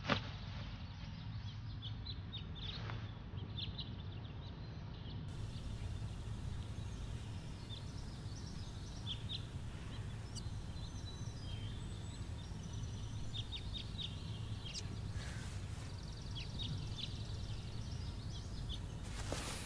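Small birds chirping intermittently in short, high notes over a steady low hum of room ambience. There is a sharp click at the very start and another, louder one near the end.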